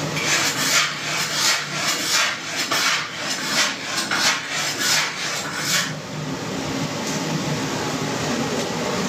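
Kitchen knife sawing back and forth through raw pork on a plastic cutting board, a run of scraping strokes at about two to three a second that stops about six seconds in.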